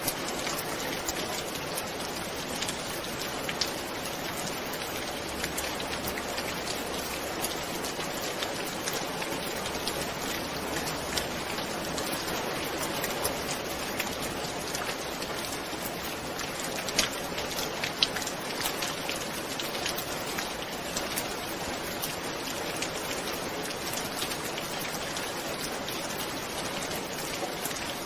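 Steady rainfall, a dense even hiss of rain with many sharp individual drop taps scattered throughout.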